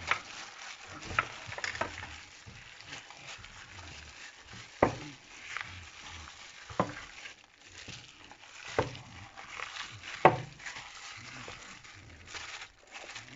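Spiced chicken being mixed with gram flour in a bowl: a steady wet rustle of the mixing, broken by about six sharp knocks against the bowl.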